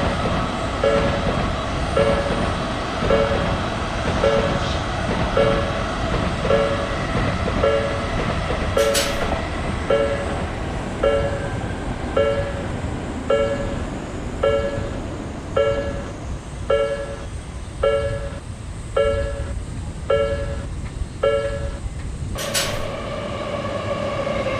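Japanese railroad crossing alarm ringing, a two-tone electronic ding repeating about once a second, over the steady rumble of a passing train. Near the end a sharp click breaks in and the ringing changes to a different alarm.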